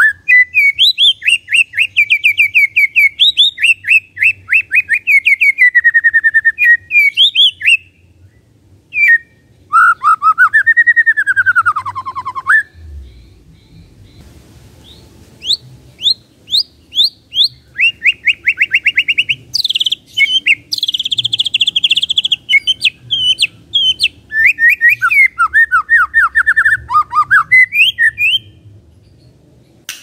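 White-rumped shama singing in loud phrases of rapid, stuttering short notes and trills, the rattling 'kretekan' style of song, with a slurred whistle that dips and rises about ten seconds in. The phrases are broken by short pauses.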